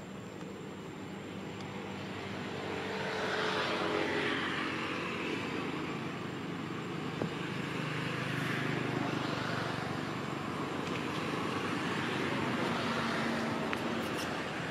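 A motor vehicle's engine running, a steady low hum with hazy noise that swells about three seconds in and then rises and falls slowly.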